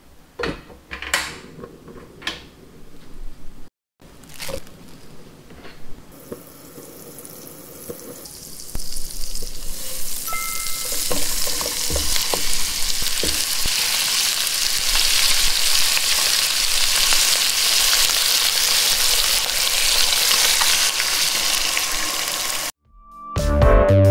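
Chicken drumsticks sizzling in butter and oil in a nonstick frying pan on a portable gas stove set to low heat; the sizzle builds up about a third of the way in and then holds steady. A few sharp clicks come in the first seconds as the stove's knob is turned.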